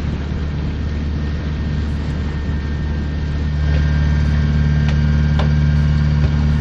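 A yacht's inboard engine running steadily under way, with a low hum that grows louder about four seconds in.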